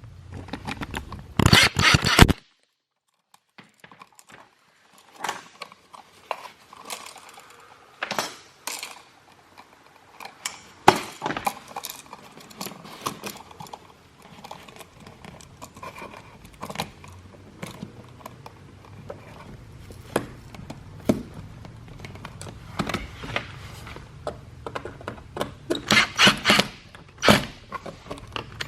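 Small clicks, taps and scrapes of hands and a hand tool working stiff copper wires onto the screw terminals of a new wall outlet, coming in irregular bursts. The sound cuts out completely for about a second and a half, about two seconds in.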